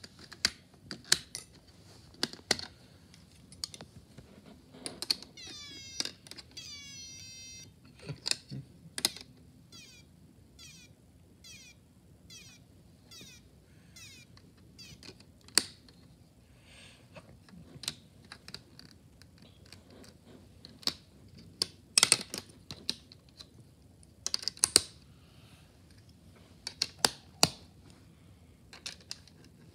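Plastic Snap Circuits parts clicking as they are snapped onto the grid and switched, with a piezo whistle chip sounding a run of rapidly repeated falling-pitch chirps for about two seconds early on, then a regular ticking about twice a second.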